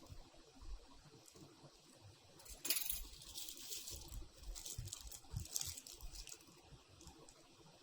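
Keyboard packaging being handled and unpacked: a sharp rustle about a third of the way in, then a few seconds of crinkling and small clicks and taps, quieter near the end.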